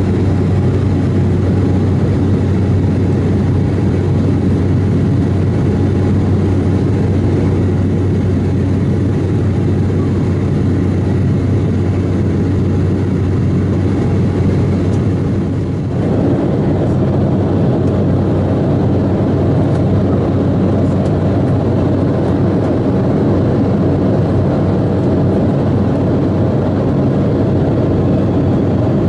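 Steady cabin drone of an Embraer 190 jet airliner in flight: a low hum from the twin CF34 turbofan engines under a loud rush of airflow. About halfway through, the noise dips for a moment and then carries on duller, with less hiss.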